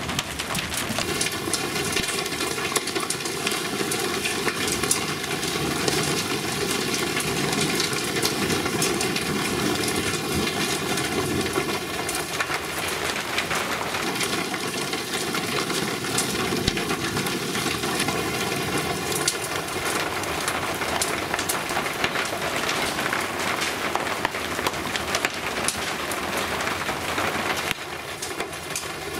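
Heavy rain pouring down, a steady rush dense with sharp taps of large drops and a few hailstones striking paving and roofs. It drops a little in level near the end.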